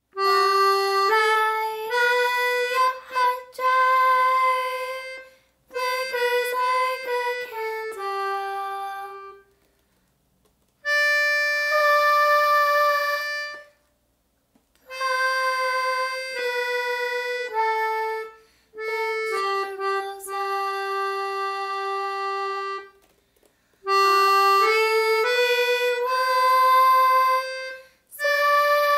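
A free-reed instrument of the harmonica or accordion kind plays a solo melody one note at a time, with no chords. The phrases come in short runs and held notes, separated by brief pauses.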